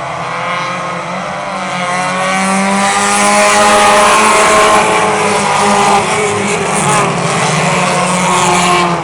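Engines of several small race cars running at speed in a pack, getting louder about two seconds in and staying loud, their pitches rising and falling as they pass by.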